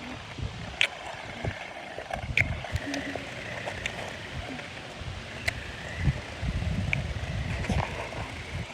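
Small electric RC car driving about, a faint wavering motor whine over uneven rumbling noise, with a few short sharp high chirps scattered through.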